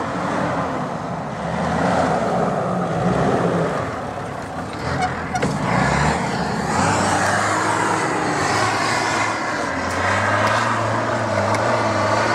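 Off-road 4x4's engine running, its pitch shifting with the throttle around the middle, then holding a steady drone that rises a little near the end.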